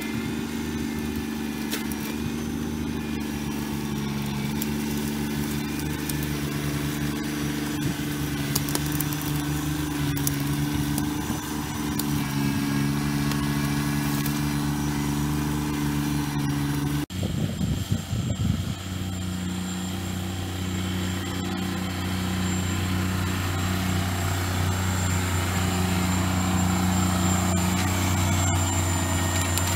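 Kubota BX25D compact tractor's three-cylinder diesel engine running steadily while the loader and grapple work. A little over halfway through the engine note changes abruptly, with a brief uneven clatter, then it runs steadily again at a different pitch.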